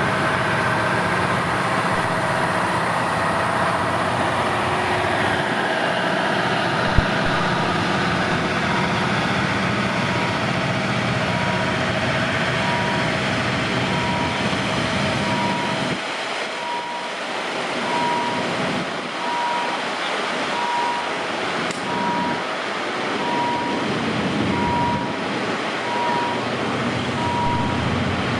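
Steady engine and vehicle rumble, with a short electronic beep repeating about once a second from about nine seconds in.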